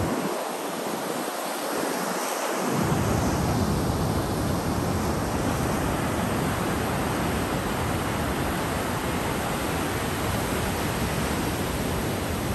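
Ocean surf breaking and washing over a rocky shore in a steady rush, with wind buffeting the microphone. A low wind rumble comes in after about two and a half seconds.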